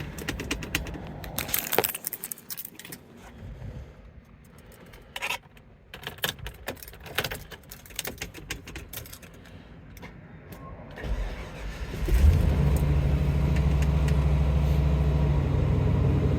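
Keys jangling and clicking for about eleven seconds, then the 1999 Chevrolet Suburban 2500's 454 big-block V8 cranks, starts about twelve seconds in and settles into a steady, loud idle.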